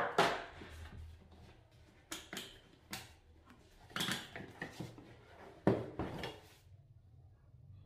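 An old plastic electric fan being handled and set down on a plywood workbench: irregular knocks, clatters and small rattles. The sharpest knocks come at the start, about four seconds in, and again near six seconds.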